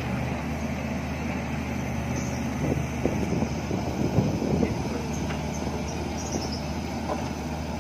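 Diesel engine of a Bobcat E45 mini excavator running steadily as the machine works its arm and bucket, with a louder, uneven stretch of machine noise from about three seconds in to nearly five seconds.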